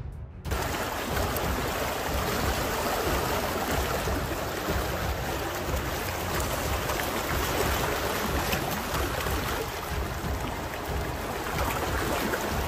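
Floodwater running fast along a flooded street: a steady rushing noise that starts suddenly about half a second in.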